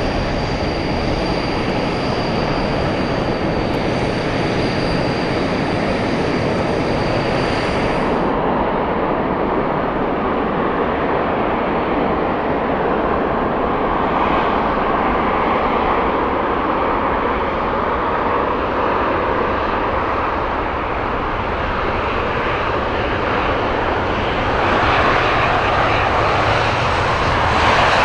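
CT-114 Tutor jets' turbojet engines running. A steady high whine drops out suddenly about eight seconds in, and the engine noise swells louder near the end.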